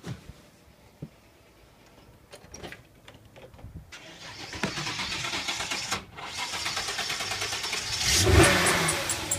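A few faint clicks and knocks, then from about four seconds in a car engine running, swelling louder near the end.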